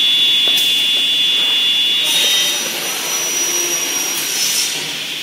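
Fine-cutting machine running with a steady high whine and hiss. A second, higher hiss joins about two seconds in and stops shortly before the end.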